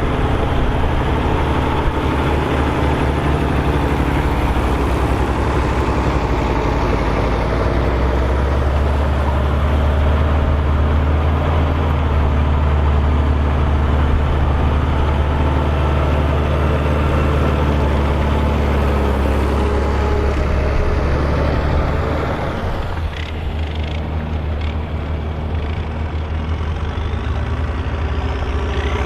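Volvo BM tractor's diesel engine running steadily under load while ploughing, with a deep, even engine note; about three-quarters of the way through it becomes somewhat quieter.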